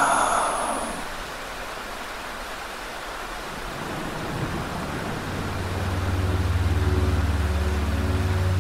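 Steady rain heard as if against windows from indoors, with a short ringing hit fading over the first second. A low ambient music drone swells in from about halfway through.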